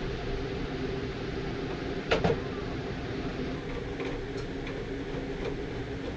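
Hard plastic clicks from a roof-fan surround being handled and fitted by hand: two sharp clicks about two seconds in, then a few lighter ticks, over a steady mechanical hum.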